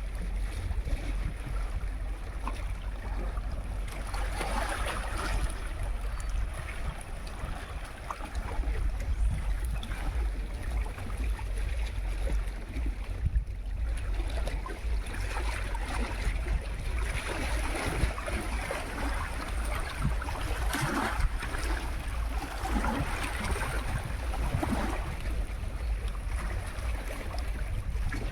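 Sea waves washing onto the shore, a hiss that swells and falls away every few seconds, over a steady heavy rumble of wind on the microphone.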